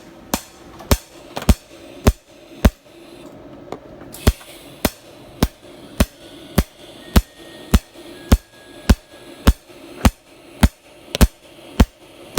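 Sharp knocks repeating at an even pace, a little under two a second, with a short break and a weaker knock about three and a half seconds in.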